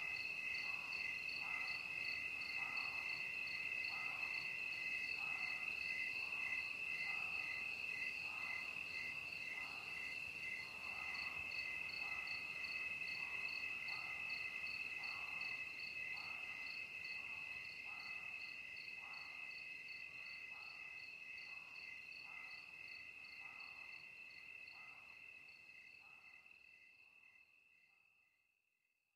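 Evening chorus of crickets: a steady high-pitched chirring with rapid pulsing calls around it, and a slower, lower pulse about once a second. It fades away over the last few seconds.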